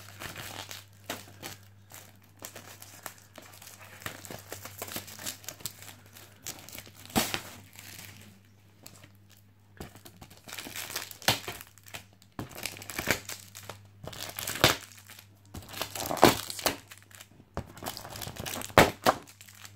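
Crinkling and rustling of Panini foil card packets and the cardboard multipack backing being handled and pulled apart, with a few sharper crackles and tearing sounds as packets come off the glued card.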